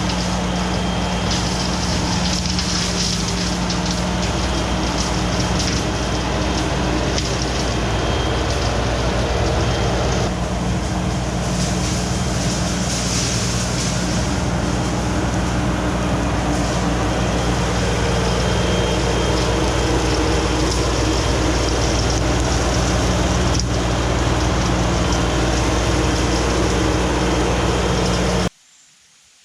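An engine running steadily, with a low hum and rough noise over it, cutting off abruptly near the end.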